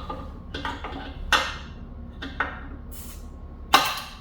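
A series of sharp clinks and clanks, about five, each with a short metallic ring, from hard parts being handled on a gun vise. The loudest comes near the end.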